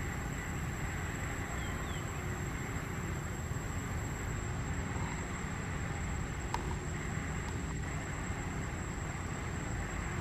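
Steady outdoor background noise: a low rumble and hiss with a thin, steady high whine, and a couple of faint ticks past the middle.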